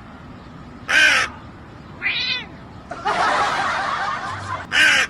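Harsh animal calls: a short loud cry about a second in, a briefer pitched call, a longer rasping call lasting under two seconds, and another short loud cry at the end.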